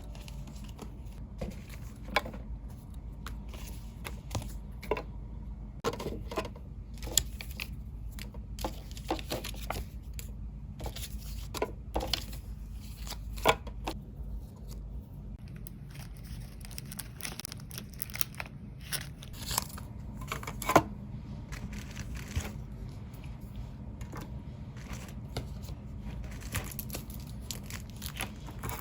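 Irregular small clicks and knocks of objects being handled and set down, scattered through with no steady rhythm, over a faint low hum.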